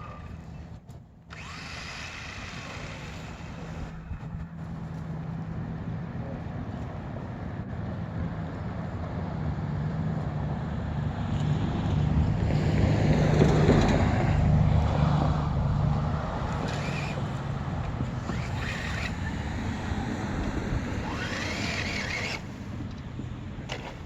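Ryobi 18-volt Uproar RC car's electric motor running, with a steady whirring hum that swells loudest partway through and then eases off.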